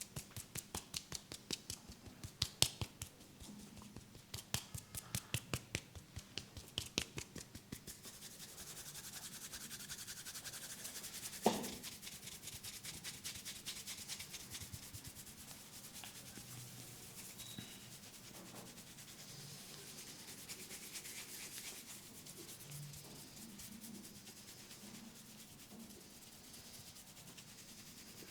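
Hands massaging a head: quick finger taps on the scalp, about three a second, for the first eight seconds or so, then a steady scratchy rubbing of fingers through the hair, with one louder sharp click about eleven seconds in.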